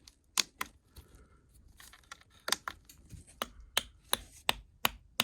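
Chinese diesel heater's fuel dosing pump clicking as it pulses: two clicks near the start, then a steady ticking about three times a second from halfway through. The clicking is the sign that the previously seized pump has been freed and is working again.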